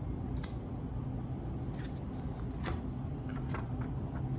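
Paper pages of a zine being handled and turned: a few short rustles and clicks over a steady low hum.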